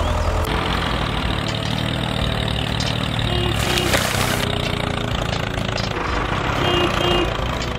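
Engine running steadily at idle, with two short higher tones around three and a half and seven seconds in and a brief scraping hiss near four seconds.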